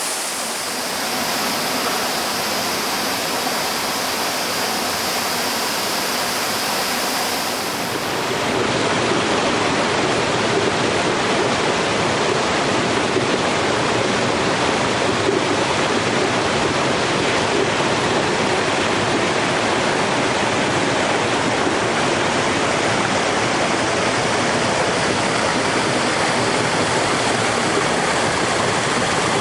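Rushing water of a mountain headwater stream, a steady dense roar of falls and rapids. About eight seconds in it switches abruptly to a slightly louder stretch of the same kind of rushing water.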